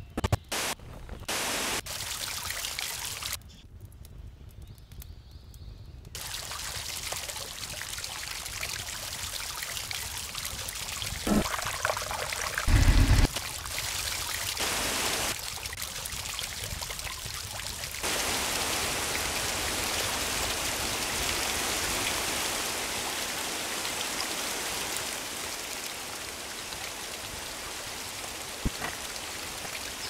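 Fountain ambient sound effects: steady splashing, running water that changes abruptly several times as different water clips take over. There are a few short knocks about 11 to 13 seconds in, the loudest a brief low thud.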